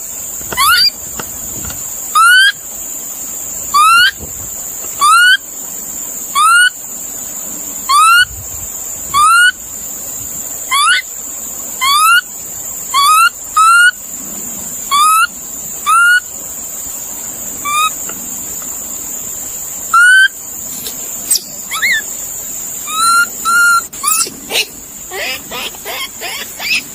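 An animal giving short, rising whistled calls over and over, about one every second and a half, over a steady high-pitched buzz. Near the end the calls come faster and less regular.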